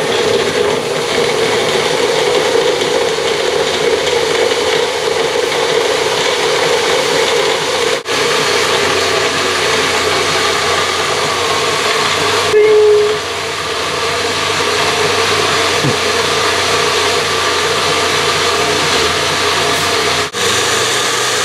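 Magic Bullet personal blender running steadily and loudly, churning frozen chicken chunks and fruit with almond milk into a shake. The motor cuts out for a split second twice, about eight seconds in and near the end.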